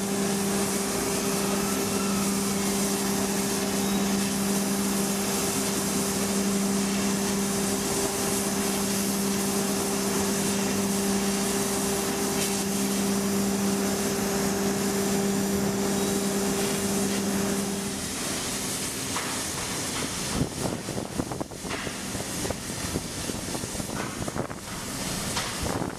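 Hand-held cutting torch hissing steadily as it cuts through a ship's steel hull plate, with a steady low hum alongside that stops about 18 seconds in. After that the hissing goes on more unevenly, with a few short knocks.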